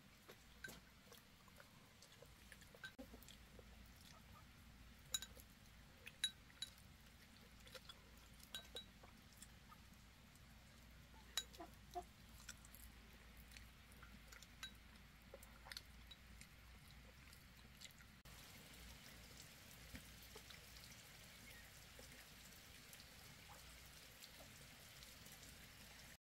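Near silence with faint, irregular small clicks and taps, a few sharper ones in the first half, over a low steady hiss.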